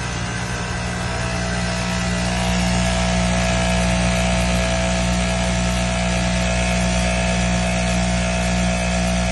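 Jack A2C auto-trimmer industrial sewing machine running steadily without a break, a constant mechanical hum and whir.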